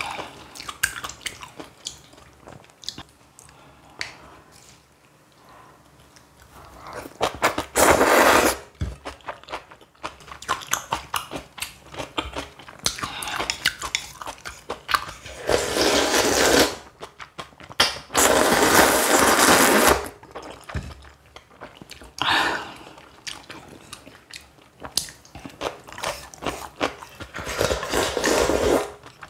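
Close-miked eating of kalguksu noodle soup and spicy kimchi: steady chewing and crunching with many small wet clicks. Several long, loud slurps break in, the longest about two-thirds of the way through.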